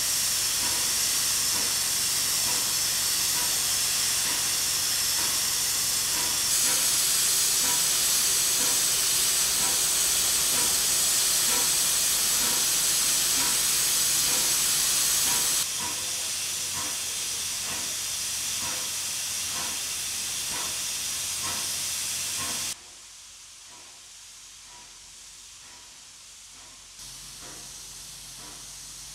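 Steam hissing steadily from the front of a PKP Pt47 steam locomotive, around its cylinders, with a faint regular beat underneath. The hiss drops suddenly in level twice, and is much quieter in the last few seconds.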